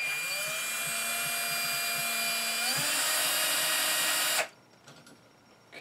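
Cordless drill-driver whining as it drives a screw into the chassis of a radio-controlled crawler. It spins up at the start, its pitch steps higher about two and a half seconds in, and it stops after about four and a half seconds.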